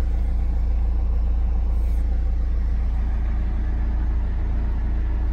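Opel Astra H 1.7 CDTI four-cylinder turbodiesel idling steadily at about 900 rpm on a cold engine, heard from inside the cabin. This is the smooth idle the car settles into once the fuel filter has been primed by revving after a cold start; without that it stalls, a fault the owner traces to the fuel filter.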